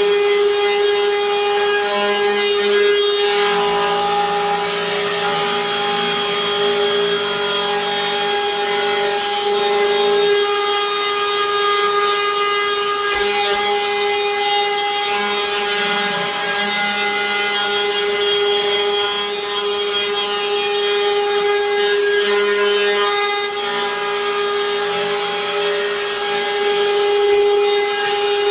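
Hikoki cordless router running at a steady high-pitched whine while cutting a lock mortise into the edge of a wooden door with a long cutter, the cutting noise coming and going as it works through the wood.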